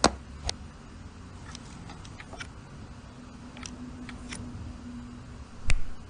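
Light clicks and taps from small hard-plastic parts being handled, with a loud knock at the start, another about half a second in, and a louder one near the end.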